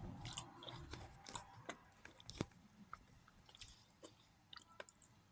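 A person chewing fresh raspberries: quiet, wet mouth clicks and smacks, irregular and scattered.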